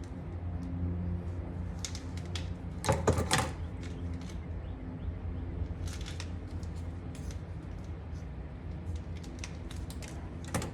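Scattered light clicks and taps from handling small wiring parts and tools, with a short cluster of clicks about three seconds in, over a steady low hum.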